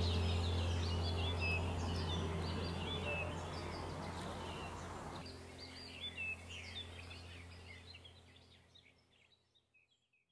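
Many small birds chirping and twittering over a low steady drone, the whole mix fading out to silence near the end.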